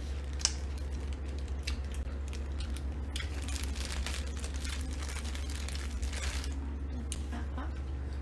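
Plastic packaging crinkling and rustling with scattered clicks, densest through the middle, over a steady low hum.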